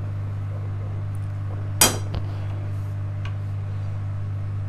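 A small glass bowl clinks once sharply against a utensil about two seconds in, with a lighter tap just after and a faint tick a second later, while it is used to test jaggery syrup for its set. A steady low hum runs underneath.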